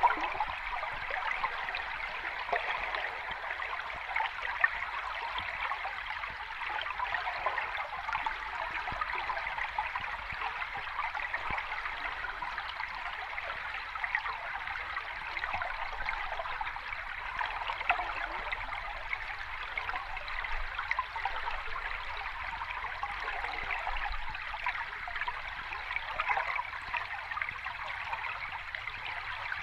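Water from a small cascade splashing and babbling steadily over rocks, an even rushing sound with little deep rumble.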